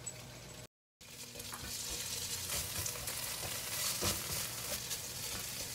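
Finely diced dried tofu sizzling in oil in a nonstick frying pan over medium-low heat, stirred and scraped around by a slotted spatula. The sound cuts out completely for a moment just under a second in, then the sizzle and scraping carry on louder.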